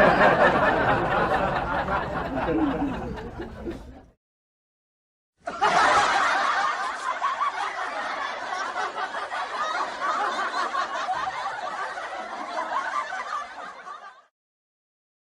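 Two stock laugh sound effects, one after the other. The first fades out about four seconds in. After a moment of silence, a second laugh starts and runs for about nine seconds, then stops.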